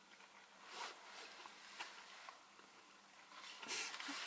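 Faint eating sounds: chewing, with the soft rustle of burger paper and cardboard boxes and a louder rustle near the end.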